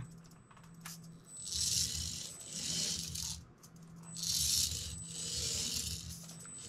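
Tiny 1:76-scale RC car driving in several short bursts, its micro motor and small gears whirring and rattling.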